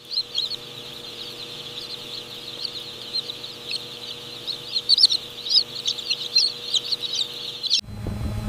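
A flock of chickens calling: a dense, continuous chatter of many short high calls over a faint steady hum. It cuts off abruptly near the end, giving way to a low, steady machine rumble.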